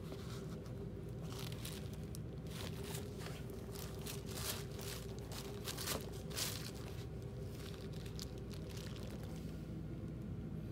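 Rustling and crinkling of sneakers being handled against a crumpled bag, busiest in the middle and dying down near the end, over a steady low hum.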